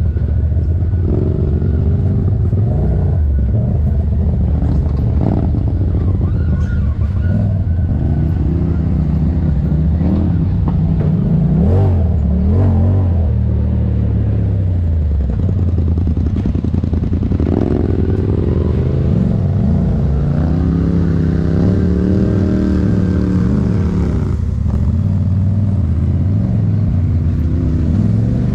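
Side-by-side UTV engine running under load, its pitch rising and falling with the throttle, with a few short knocks and clatter. It climbs to a higher held pitch for a few seconds past the middle, then drops back.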